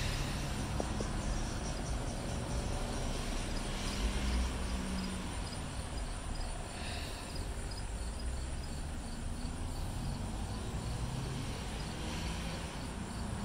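Insects chirping in a steady, regular pulse of short high chirps, several a second, over a low background rumble.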